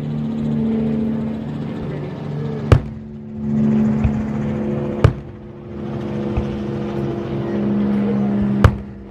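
Fireworks shells bursting overhead: three sharp bangs a few seconds apart and a few fainter pops, over the steady hum of vehicle engines on the road that swells and fades as traffic goes by.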